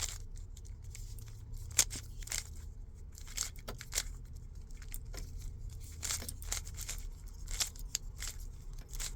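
Plastic Rubik's cube being twisted by hand: a quick, irregular series of short clicks and clacks as the layers turn.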